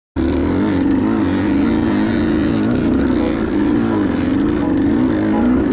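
Enduro dirt bike engine running under the rider, its pitch rising and falling continuously as the throttle is worked on a dirt trail.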